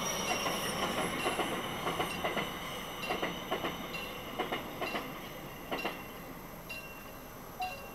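Passenger train coach wheels clacking over the level crossing and rail joints as the train goes by, the clacks thinning out and stopping about six seconds in as the last coach clears.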